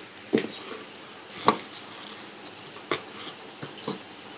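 Hands handling and opening a tape-sealed cardboard parcel box: a few short, separate taps and scrapes on the cardboard and packing tape, the loudest about a second and a half in.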